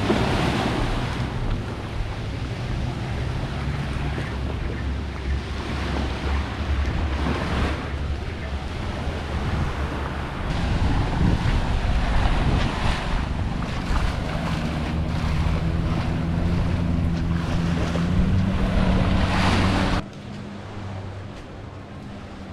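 Long-tail boat engine running steadily, its pitch rising slightly, with wind buffeting the microphone. It cuts off suddenly near the end to a much quieter background.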